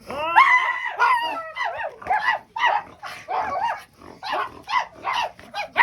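A person imitating a dog: a rapid run of short, high yelps and whimpering barks, about two a second, their pitch gliding up and down.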